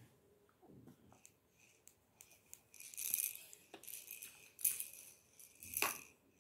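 Baby toys rattling and clicking as a baby handles them: jingly plastic clatter, busiest from about three seconds in, with a sharp knock near the end.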